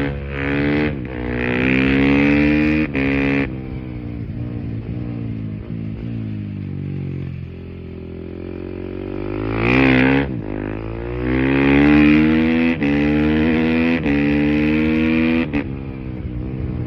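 KTM EXC-F 350 single-cylinder four-stroke engine with an Akrapovic exhaust, accelerating hard through the gears with a brief break at each upshift. It then drops in pitch for several seconds as the bike slows, and accelerates through the gears again from about ten seconds in.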